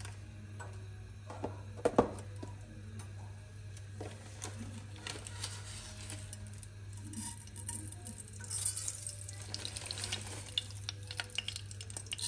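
Mustard seeds dropped into hot oil in a saucepan, sizzling and crackling from about eight seconds in, over a steady low hum. A sharp knock comes about two seconds in.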